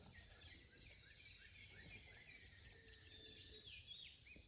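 Near silence: faint outdoor ambience with a run of faint, short, high chirps, about two a second.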